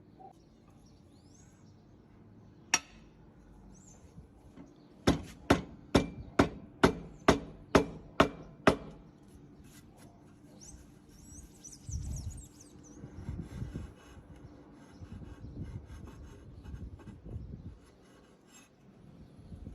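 One sharp knock, then a run of nine sharp, evenly spaced knocks at about two a second, followed by softer, irregular rustling and rumbling of handling.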